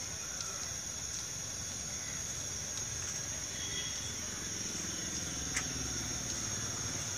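Steady high-pitched drone of insects, with a low rumble underneath and a single click about five and a half seconds in.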